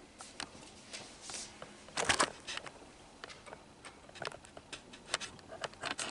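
Quiet room with scattered small rustles and clicks of people shifting and handling papers. A louder scraping knock about two seconds in comes from a chair taking a man's weight as he sits down.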